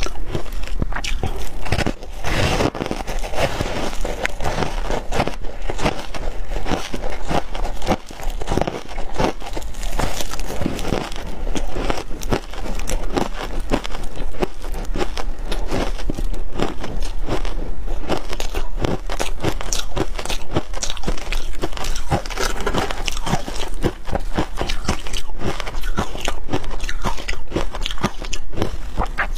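Ice coated in matcha powder being bitten and chewed: a dense, continuous run of sharp cracks and crunches.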